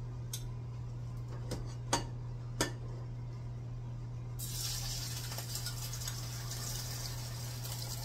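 A spatula clicks against a small bowl a few times as food is scraped out. About halfway through, the food hits a hot frying pan and starts sizzling steadily. A steady low hum sits underneath throughout.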